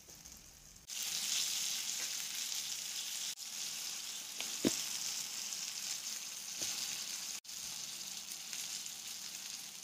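Surmai (kingfish) steaks shallow-frying in hot oil on a flat iron pan: a steady sizzle that starts suddenly about a second in, with one short tap about halfway through.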